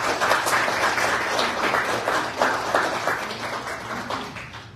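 A small group of people applauding, a dense patter of many overlapping hand claps that dies away near the end.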